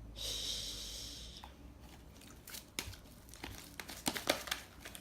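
Fluffy slime being squished and pulled apart in the hands: a hissing rustle for the first couple of seconds, then scattered small crackles and pops.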